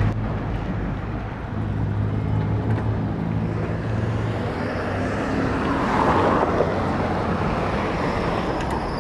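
Street traffic: a vehicle engine's steady low hum that fades out about four and a half seconds in, then the noise of passing traffic, which swells around six seconds in.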